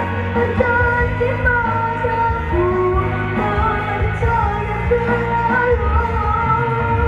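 Malay pop-rock song playing: a melodic lead line over full band accompaniment.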